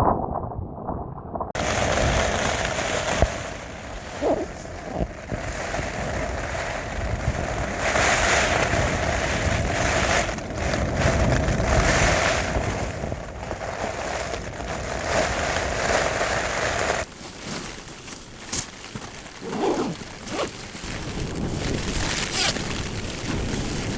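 Storm wind gusting hard in swells, with heavy wind noise on the microphone. It drops off abruptly about two-thirds of the way through, leaving quieter wind with a few scattered knocks.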